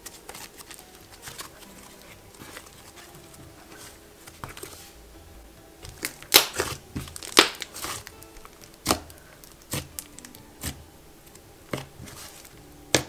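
Thick, creamy pink clay slime being stretched, folded and pressed by hand, giving sharp pops and crackles: a cluster about halfway through, then single pops about once a second. Faint background music plays underneath.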